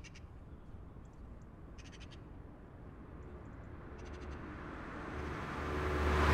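Hyundai i10 hatchback approaching and driving past close by. Its engine and tyre noise grows steadily over the last two seconds into a rushing pass-by at the end, over a low rumble. Short chirps are heard three times earlier on.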